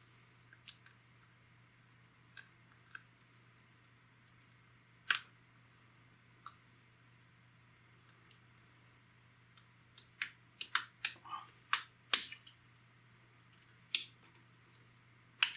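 Sharp, irregular clicks of a razor blade prying around the edge of an iPod Touch screen and its plastic retaining clips letting go. The clicks are scattered at first, then come in a quick cluster from about ten seconds in.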